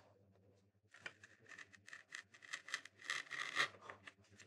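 Small woodcarving knife cutting into a wooden printing block: a run of short, irregular scratchy cuts starting about a second in and stopping near the end.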